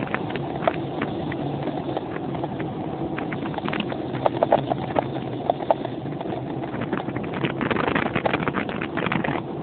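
Wind buffeting the microphone and rumble from travelling at speed, with irregular rattling clicks throughout and a few short high-pitched squeaks around the middle.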